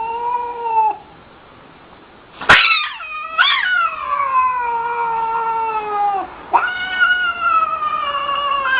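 A cat yowling. A short meow is followed by a sharp click about two and a half seconds in. Then comes a long drawn-out yowl sliding down in pitch, and a second long yowl starts about six and a half seconds in.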